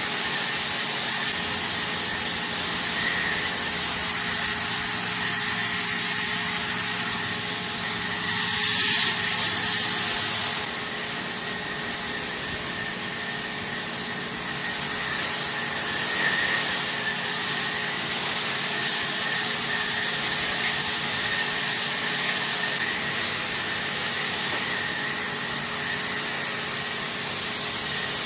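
Pressure washer running, its water jet spraying with a steady hiss over a thin high whine from the machine. The spray grows louder for a couple of seconds about eight seconds in, then settles back.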